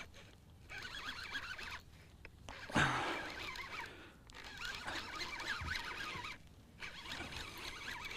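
Fishing reel working in spurts as a hooked largemouth bass is fought, a raspy, zipper-like ratcheting lasting a second or two each time with short breaks between, and a sharp loud knock about three seconds in.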